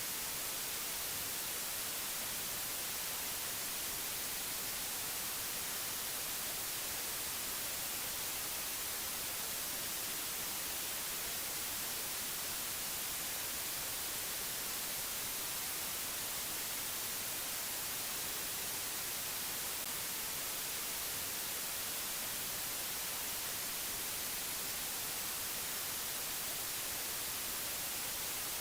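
Steady, unchanging hiss of white noise, brightest in the high treble, with no other sound over it.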